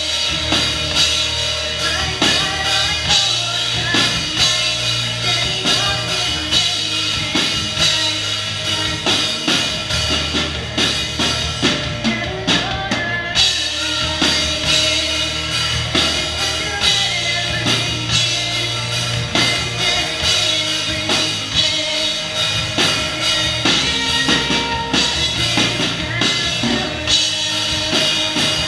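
Live rock music, loud and continuous: a two-piece band playing drum kit and electric guitar, with steady drum hits throughout.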